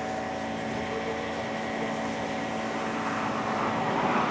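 A steady mechanical hum with a few held tones under a noisy rumble, swelling slightly near the end.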